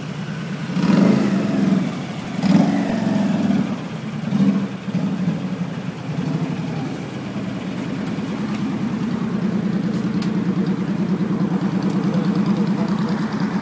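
Cruiser motorcycle engine riding slowly at low revs, with three short throttle surges about one, two and a half and four and a half seconds in, then running steadily and growing slowly louder as it comes close.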